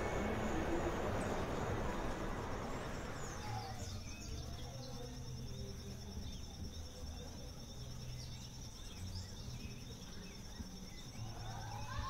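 Passing traffic noise fades out over the first few seconds, leaving a steady, finely pulsing high insect trill with a few short bird chirps.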